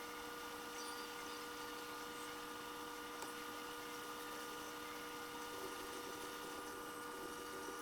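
Steady electrical hum made of several fixed tones over a faint hiss, unchanging throughout.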